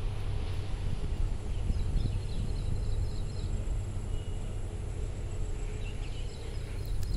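Outdoor ambience: a steady low rumble with faint bird chirps about two seconds in and again near the end.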